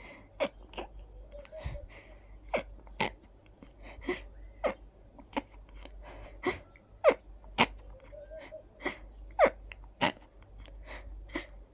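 A person sneezing in a long fit: more than a dozen short, sharp sneezes in quick succession, about one every half second to a second, with faint breaths between them.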